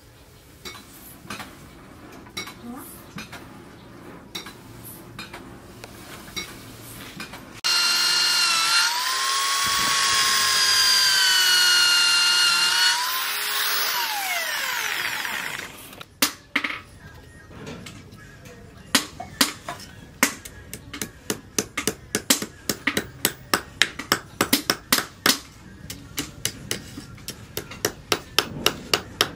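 An electric drill runs for about five seconds with a wavering whine, then winds down. It is followed by a long run of sharp hammer taps, sometimes about two a second, on a cleaver's wooden handle resting on a steel post. Light clicks of hand work come before the drill.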